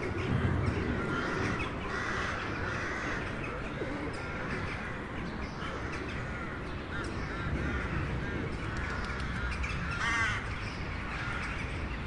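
A feeding flock of gulls and crows calling: many short, harsh, overlapping calls, with a denser cluster of calls about ten seconds in, over a steady low background rumble.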